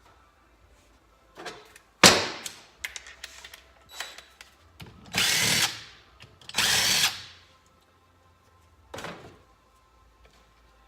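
A sharp metal knock and a few light clatters, then a power drill running in two short bursts of about a second each, taking fasteners off a small motorcycle engine's case.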